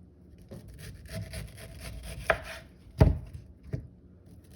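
Kitchen knife cutting down through a peeled pineapple around its core, with four sharp knocks of the blade, the loudest about three seconds in.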